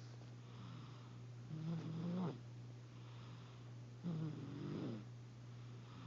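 Snoring: two long snores about two and a half seconds apart, each with a low buzzing pitch, over a steady low hum.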